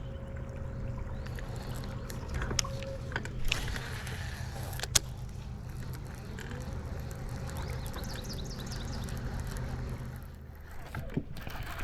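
Boat motor running steadily at low speed, with a few sharp clicks over it; the hum dies away near the end.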